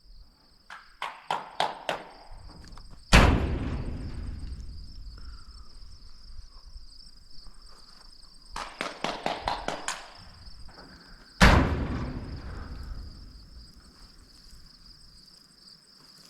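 Two shotgun shots about eight seconds apart, each echoing and dying away slowly, with a quick run of clicks shortly before each. A steady high buzz of crickets carries on underneath.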